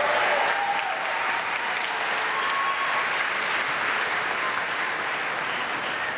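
Large crowd applauding, with a few cheers near the start; the clapping holds steady and eases slightly toward the end.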